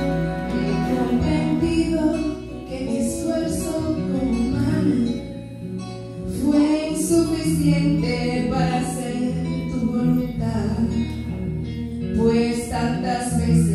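A woman singing a worship song through a microphone over instrumental accompaniment with a steady bass line.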